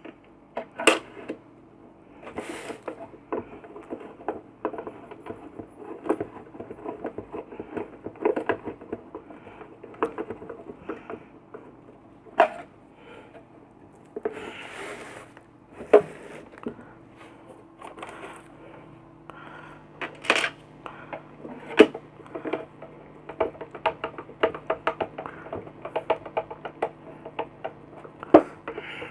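Screws being driven into the back cover of a compressor nebulizer's plastic casing with a screwdriver: runs of quick light clicks and taps, broken by a few sharper knocks of the tool and parts against the casing.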